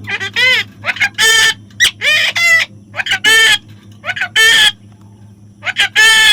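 Parrot squawking loudly, about ten short harsh calls in quick clusters with brief pauses between.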